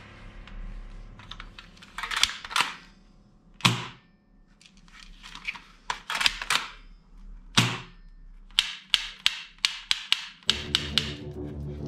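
Hard plastic toy minigun parts knocking and clicking as they are handled and fitted together, with a quick run of about eight sharp clicks, roughly four a second, near the end. Background music comes in just before it ends.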